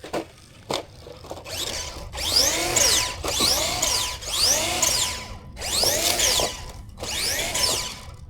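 Electric motor and drivetrain of a Traxxas Maxx RC monster truck whining as the throttle is blipped, the pitch rising and falling over and over, roughly once a second. A couple of clicks come just before.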